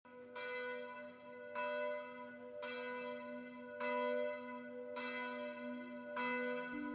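A bell struck six times at an even pace, about once every 1.2 seconds, each strike ringing on into the next.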